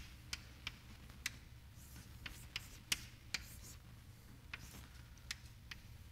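Chalk tapping on a blackboard while writing letters and an arrow: a dozen or so short, sharp, irregularly spaced taps over a low steady hum.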